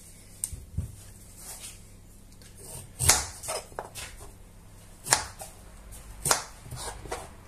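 A kitchen knife cutting peeled potatoes into chunks on a plastic cutting board: a handful of sharp knocks a second or two apart as the blade goes through and strikes the board, the loudest about 3, 5 and 6 seconds in, with quieter handling sounds between.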